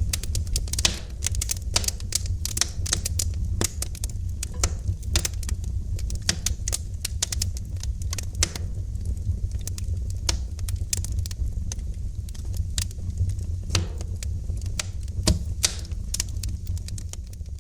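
Wood fire burning in a fireplace, crackling with many quick irregular pops, a few sharper and louder, over a steady low rumble of the flames.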